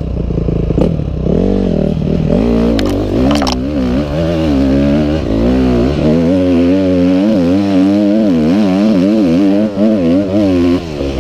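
A Honda dirt bike's single-cylinder four-stroke engine is revved up and down over and over as the bike is ridden over rough ground, its pitch swinging about twice a second. A few sharp knocks and clatters come about three seconds in.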